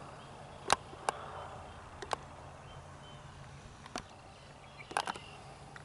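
Faint outdoor ambience with a low steady hum, broken by about half a dozen sharp clicks and taps scattered through.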